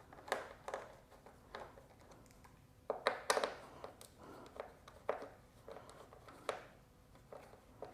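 Hand tools working screws out of a pit bike's plastic and metal parts: irregular light clicks and short scrapes, a cluster of louder ones about three seconds in.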